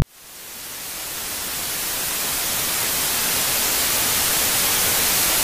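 Steady hiss of noise that fades in from near silence over the first couple of seconds, then holds level. It is strongest in the high end, like static or recording hiss.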